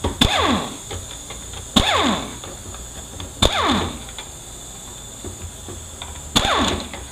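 Power ratchet run in short bursts on the 8 mm bolts of a 4L80E accumulator housing. Each burst starts with a sharp click and its whine falls away in pitch over about half a second; there are four bursts.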